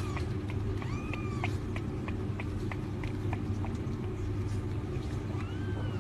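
A kitten mewing twice, short rising-then-falling mews about a second in and near the end, with faint quick clicks between them over a steady low hum.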